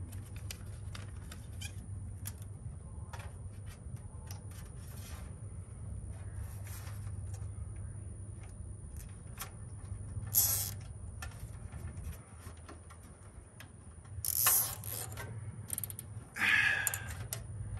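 Nylon zip ties being ratcheted tight around the wiring in an air-conditioner condenser's control panel: scattered small clicks and handling noise, with three short, louder zips in the second half.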